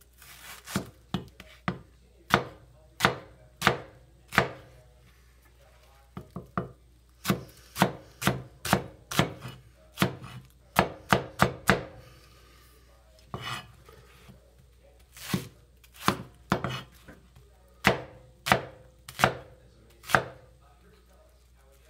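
Heavy 2.5-pound meat cleaver chopping an onion on a wooden cutting board: a string of sharp knocks as the blade strikes through into the board, in irregular runs with short pauses between them.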